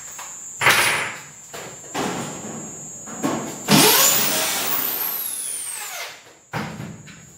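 Corded electric drill run in a short burst, its motor speeding up and then winding down over about two seconds. A single knock follows near the end.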